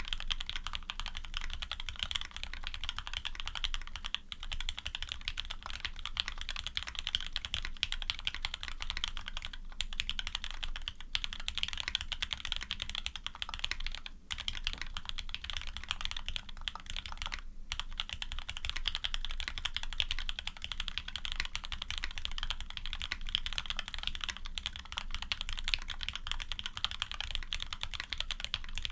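Continuous fast typing on a custom Serratus mechanical keyboard with an aluminium plate, GMK keycaps and switches built from Cherry top housings on H1 switches, with TX films, 62 g springs and Krytox 105/205 lube. The keystrokes run densely, broken by a few short pauses.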